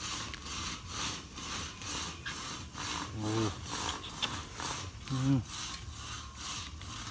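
A steady rasping pulse, about three times a second, with two short grunt-like vocal sounds, about three and five seconds in.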